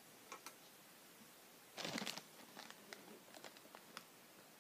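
Foil snack bag crinkling as it is handled, with a few faint clicks and a louder, brief rustle about two seconds in.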